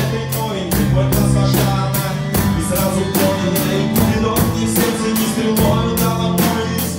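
Rock band playing an instrumental passage of a slow-dance song: a drum kit keeps a steady beat over bass and guitar.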